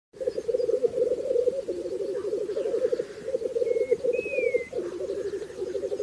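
Male black grouse giving their bubbling, cooing lek display song, a continuous rapid pulsing chorus. About four seconds in, a short whistle and then a falling whistle sound higher above it.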